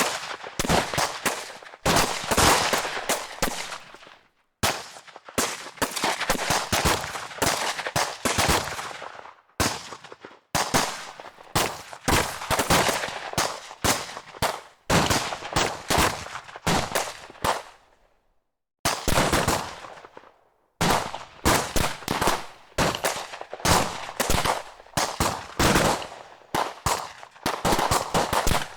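Automatic gunfire: rapid bursts of shots, several seconds long each, broken by brief pauses.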